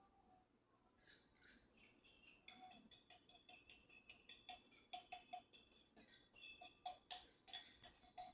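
Faint, rapid light clinking and tinkling of kitchen utensils against dishes, starting about a second in.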